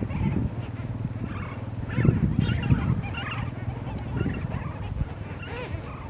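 A flock of flamingos calling: a busy, overlapping chatter of many birds, low grunting calls under higher honking ones, busiest around two to three seconds in.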